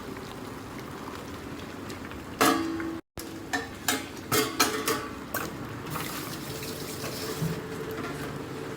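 Water running and splashing, with a loud clatter about two and a half seconds in, a brief cut-out, then several sharp metallic clanks over the next two seconds.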